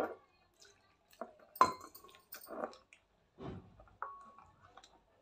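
A spoon stirring thick wheat-flour batter in a glass bowl: soft wet squelches and scrapes, with a sharp clink of the spoon against the glass about a second and a half in and another near four seconds that rings briefly.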